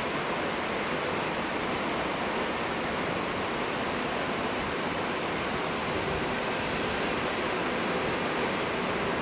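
A steady, even rushing noise with no distinct tones or knocks.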